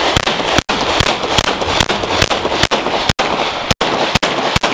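Semi-automatic pistol firing a rapid, steady string of shots, about three to four a second, with the range echo filling the gaps between them.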